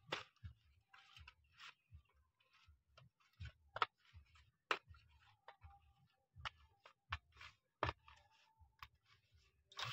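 Faint, irregular clicks and soft taps of raw fish pieces being rubbed with salt and turmeric by hand on a steel plate, knocking against the metal.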